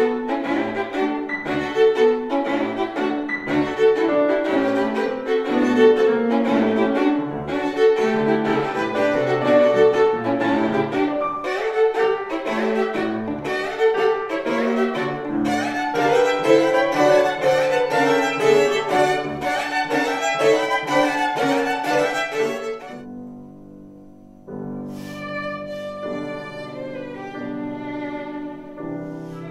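Solo violin with piano accompaniment playing a fast, busy classical passage. About 23 seconds in it fades and cuts to a quieter, slower passage of sustained violin notes over piano.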